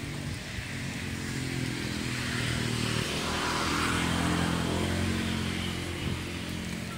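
A motor vehicle engine passing by. It grows louder to a peak a little after the middle, then fades.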